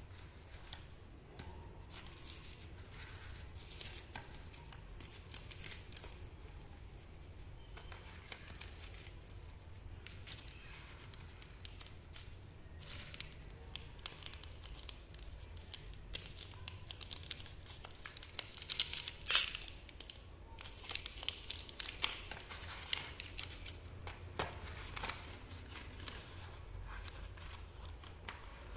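Plastic chocolate-bar wrappers crinkling and cardboard boxes rustling as they are picked up, handled and set down, in irregular scratchy rustles that are busiest and loudest about two-thirds of the way through.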